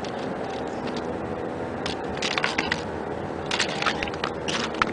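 Sharp clicks and scrapes on ice, in a cluster about two seconds in and another near the end, over a steady background.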